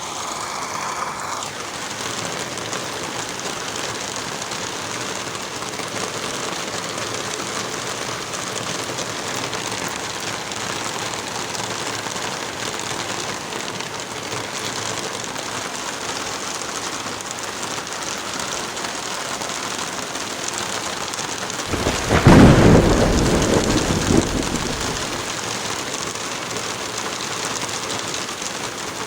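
Heavy rain falling steadily, with one loud clap of thunder about three quarters of the way through that rumbles and dies away over a few seconds.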